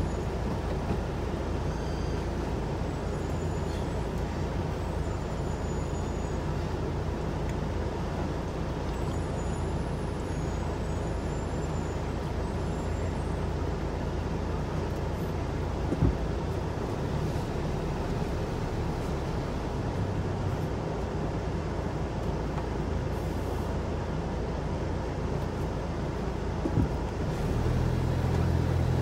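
Steady low vehicle engine rumble heard from inside a car's cabin, with a single knock about halfway through. Near the end the engine note grows louder as the car pulls forward.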